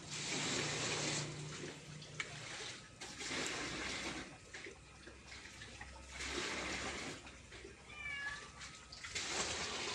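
Domestic cat meowing once, briefly and with a wavering pitch, about eight seconds in, over a rushing hiss that swells and fades several times.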